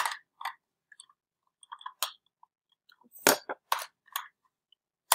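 Plastic toy lightsaber pieces clicking and knocking as a part is pushed into a Blade Builders connector, in scattered short clicks with a louder cluster about three seconds in.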